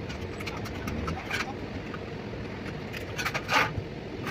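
Scraping strokes on a cooler's sheet-metal body during smoothing work: a few short, irregular scrapes, with a louder one about three and a half seconds in, over a steady low hum.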